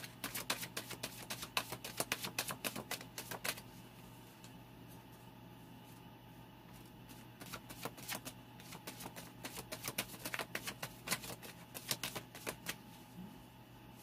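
A deck of tarot cards being shuffled by hand: rapid runs of crisp card clicks, in two bouts with a pause of about four seconds between.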